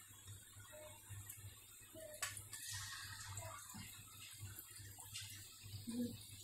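Chicken tikka skewers deep-frying in hot oil in a pan: a faint, steady sizzle with a few small crackles.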